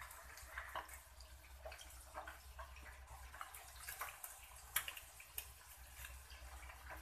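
Faint scattered small clicks and ticks, one a little sharper near the end, over a steady low hum.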